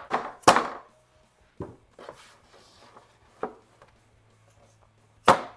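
Small hammer tapping a putty knife driven behind a bracket on a plastic car interior trim panel, to break the bracket's plastic welds. Two sharp strikes at the start, a few lighter knocks, then another sharp strike near the end.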